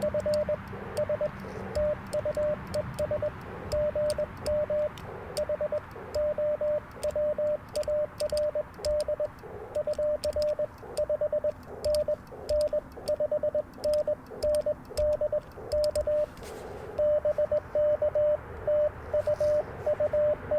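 Morse code (CW) on an Icom IC-705 transceiver: a single steady tone keyed in dots and dashes over band hiss, with faint clicks throughout. The keying gets louder and more continuous about three-quarters of the way in.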